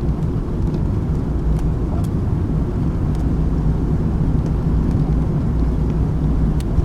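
Steady low rumble of vehicle noise, with a few faint ticks.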